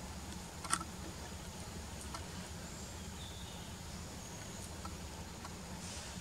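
Outdoor ambience: a steady low hum, with one sharp click about a second in, a few fainter ticks later, and faint brief high chirps.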